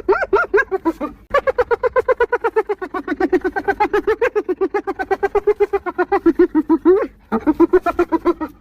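Spotted hyenas giggling: rapid runs of short, high, rising-and-falling whoops, about seven a second. One run breaks off about a second in, a long run follows for about six seconds, and another starts near the end.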